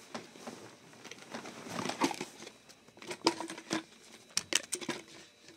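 Handling noise of small plastic toys and their case: a string of sharp clicks and knocks with some rustling.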